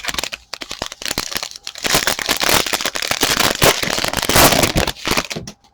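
Foil trading-card pack wrapper crinkling and crackling as it is handled. It starts as scattered clicks and builds to a dense crackle about two seconds in, which stops shortly before the end.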